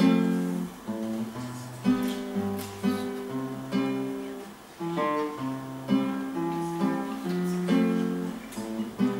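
Acoustic guitar played solo, with no voice. Chord notes are picked one after another in a steady rhythm, and a full strum falls now and then.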